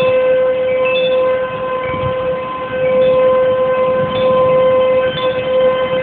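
American Signal Tempest T-128 mechanical tornado warning siren sounding a steady, loud tone. It dips in loudness about a second and a half in and swells back up about a second later.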